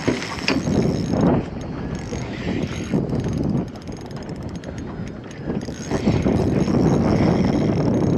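Fishing reel being wound in against a hooked fish, its gears and clicker giving a rapid mechanical ticking that comes in runs, about a second and a half in and again through the last few seconds.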